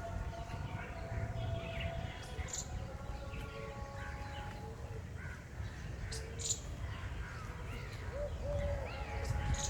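Birds calling and chirping in short, scattered bursts over a steady low rumble.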